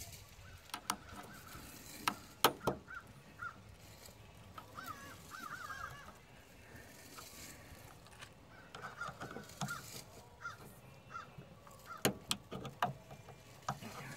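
Scattered sharp clicks and taps of a screwdriver working the retaining clip at the lower end of a hatch gas-strut lift support, with short wavering high-pitched animal calls in the background.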